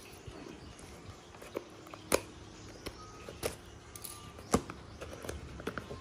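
A small cardboard box handled and turned in the hands, with a string of sharp taps and knocks against the cardboard. The two loudest come about two seconds in and about four and a half seconds in.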